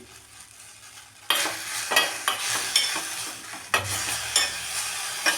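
Tulsi and Indian borage leaves sizzling in a hot pan while being sautéed: the sizzle starts suddenly about a second in, and a spoon or spatula scrapes and stirs through them in repeated strokes.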